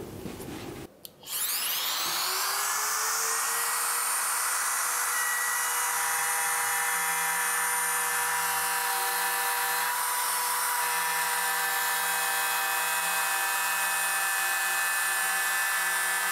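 Handheld electric router starting up about a second in and winding up to full speed, then running at a steady high whine as its bit cuts a groove in laminate-covered plywood.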